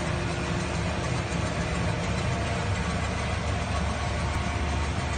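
Coin-operated rice milling machine running: a steady motor-and-blower hum with a low rumble and a constant tone, as it mills brown rice.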